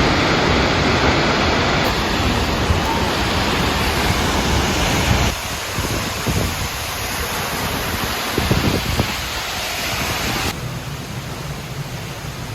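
Waterfall rushing loudly and steadily, its level dropping abruptly twice, about five and ten seconds in.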